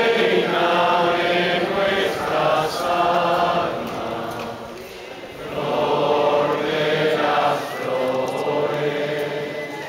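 Many voices singing together in two long, drawn-out phrases with a short break about halfway, a religious chant sung by a crowd to the procession's image of the Virgin.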